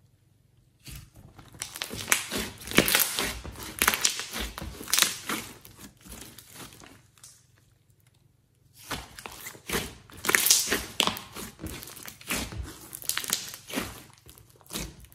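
Hands stretching and pressing glossy slime mixed with clay: dense runs of sticky crackles and pops, in two spells of several seconds with a short pause between.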